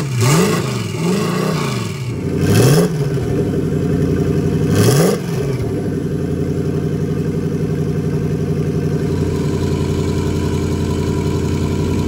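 Twin-turbo 4-litre Lexus UZ V8 exhaust from short open pipes: four quick throttle blips in the first five seconds, then a steady idle.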